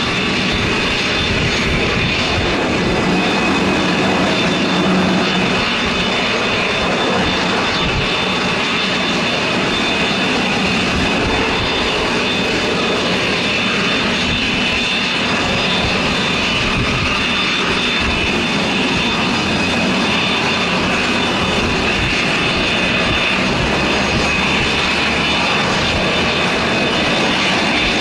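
Short SD3-60 Sherpa's twin Pratt & Whitney Canada PT6A turboprop engines running at taxi power as the aircraft taxis past, a steady high turbine whine over a broad propeller rush.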